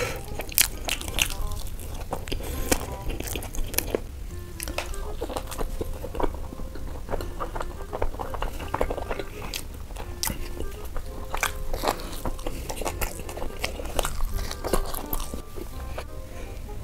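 Close-miked eating sounds of a man biting and chewing food, with many short, crisp mouth clicks and crunches. Soft background music with a simple melody plays under it.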